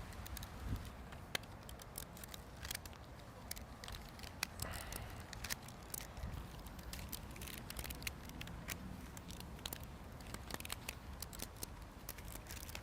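Rubber bands being stretched and snapped one by one around a watermelon: faint, irregular sharp clicks and snaps.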